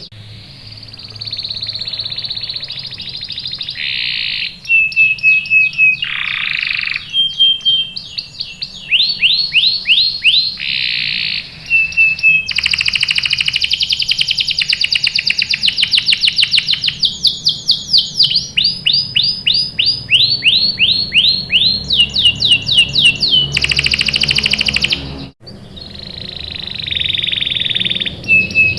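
Domestic canary singing a long, loud song of rapid trills and rolls: fast runs of repeated rising sweeps and held whistled notes, changing from one tour to the next. The song breaks off briefly about 25 seconds in.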